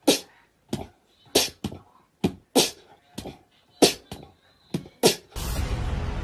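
A cat makes about a dozen short, sharp puffing sounds, irregular, roughly two a second. Music starts up about five seconds in.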